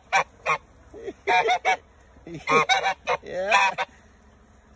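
White domestic goose honking at close range in repeated short bouts, the last and longest bout near the middle rising in pitch: an aggressive goose confronting a truck.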